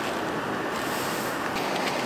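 Steady rushing hiss of polyethylene powder pouring from a bag into a steel rotational-moulding mould.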